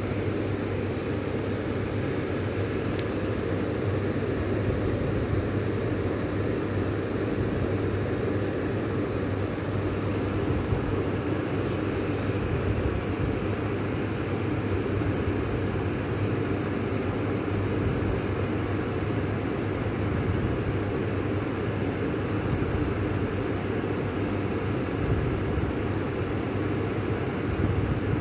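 Clipsal Airflow wall exhaust fan running steadily: an even rush of air from the blades over a low motor hum.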